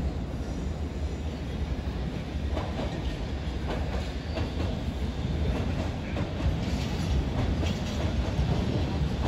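London Underground S Stock train running past with a steady low rumble. From about two and a half seconds in, its wheels clack irregularly over the rail joints and crossings.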